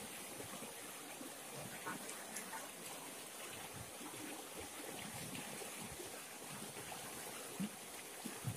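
Shallow river running over stones, a steady rush of water, with a few faint splashes and knocks as a fish is washed by hand in the shallows; the clearest knock comes near the end.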